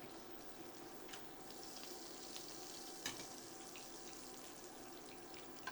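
Atlantic salmon fillets searing in a pan of oil and butter: a faint, steady sizzle with scattered small crackles, and one sharper click about three seconds in.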